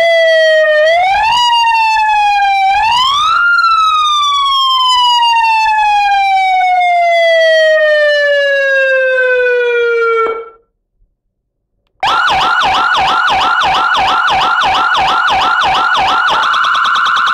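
AS928 wireless electronic siren with a 200-watt horn speaker, run through its tones from the remote. It pushes a wail up in steps and then lets it wind slowly down over about seven seconds until it cuts off. After a short pause comes a quick tone repeating about four times a second, which switches near the end to a rapid warble.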